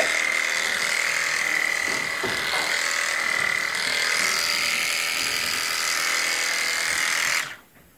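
Mobishear cordless electric shearing handpiece running steadily as it cuts wool while crutching a sheep, a steady high-pitched whine; it switches off near the end.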